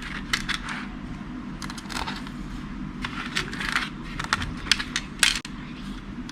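Irregular small metallic clicks and taps as the screws of a MacBook Pro's aluminium bottom case are handled and fitted with a small screwdriver.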